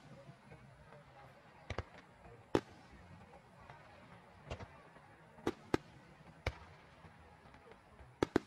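Aerial firework shells bursting overhead: about nine sharp bangs at irregular intervals, several in quick pairs, over a faint steady low hum.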